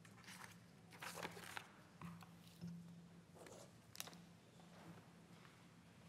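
Faint rustling and handling of papers and a folder at a lectern microphone, with a sharp tap about four seconds in, over a faint low hum; otherwise near silence.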